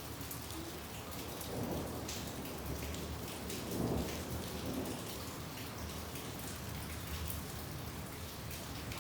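Steady rain falling, with scattered drops ticking, and a low rumble of thunder that swells from about a second and a half in, is loudest around four seconds, and fades by five.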